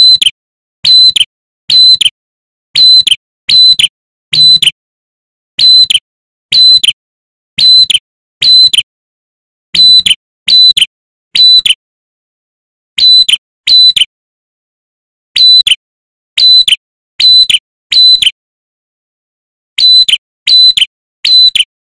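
Male ashy tailorbird calling: loud, sharp whistled notes, each dropping in pitch at its end, repeated about every two-thirds of a second, with a few short pauses.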